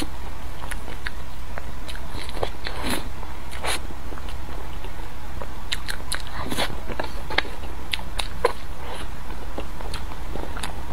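Close-miked biting and chewing of a soft chocolate-glazed bun, with scattered short mouth clicks.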